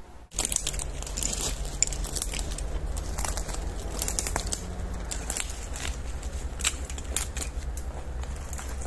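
Twigs and leaf litter crackling and snapping as someone moves through forest undergrowth: an irregular run of short sharp snaps and rustles over a steady low rumble.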